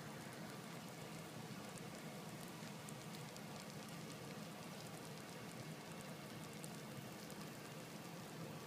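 Faint, steady sizzling with fine crackles from beaten eggs cooking inside a Rollie Eggmaster egg cooker's heated tube, over a low steady hum.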